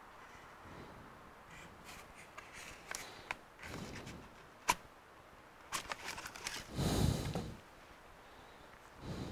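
Handling noises of a Surface Pro 9 tablet being moved on a perforated screen-separator plate: scattered light clicks and taps, one sharp click about halfway, and a louder dull thump about seven seconds in as the tablet is lifted.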